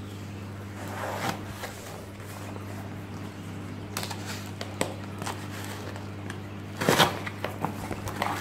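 A folding knife slitting the packing tape on a cardboard box, with scratchy clicks and rustles, then the cardboard flaps being pulled open, loudest about seven seconds in. A steady low hum runs underneath.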